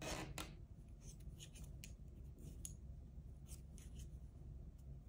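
Wooden knitting needles and yarn being worked by hand while knitting stitches: faint, irregular light clicks and rubbing.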